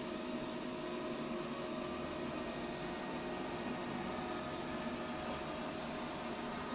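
Vorwerk VR100 robot vacuum cleaner running as it starts its cleaning run: a steady hum of its suction fan and brushes, with a faint high whine.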